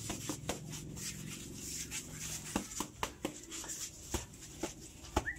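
Boxing gloves striking focus mitts in quick combinations: a series of sharp smacks in short irregular bursts.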